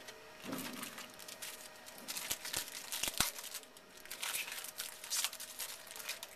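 Foil wrapper of a trading-card pack crinkling and tearing as the pack is opened, with cards being handled, and two sharp clicks a little after three seconds in.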